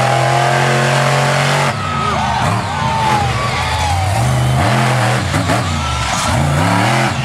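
Monster truck engine revving hard, held at high revs for nearly two seconds while the truck wheelies, then blipped up and down several times.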